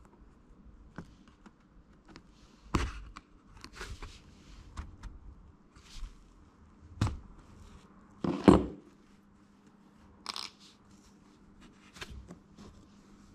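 Hand-stitching the edge of a knotted rug: a needle gripped with pliers is pulled through the edge and the thread drawn after it, giving scattered rustles, scrapes and small clicks. The two loudest pulls come about three seconds in and again about eight and a half seconds in.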